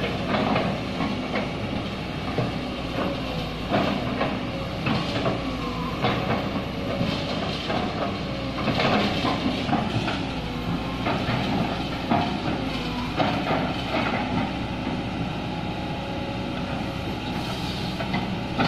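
Kobelco hydraulic excavator's diesel engine running under load, its pitch rising and falling as the hydraulics work, with frequent short knocks and cracks as the bucket pushes against an old oil palm trunk to fell it.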